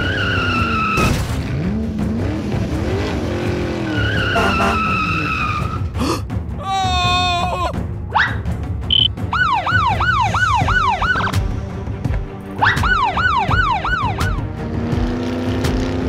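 Background music with cartoon sound effects laid over it. A police siren effect wails in quick rising-and-falling cycles, about three a second, in two short bursts past the middle.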